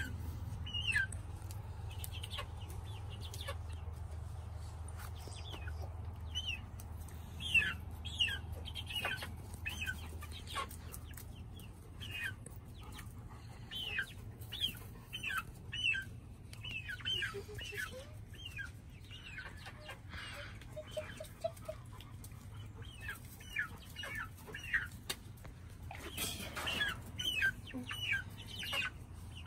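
Two-month-old chicks peeping and clucking: a long run of short falling calls, one every second or so.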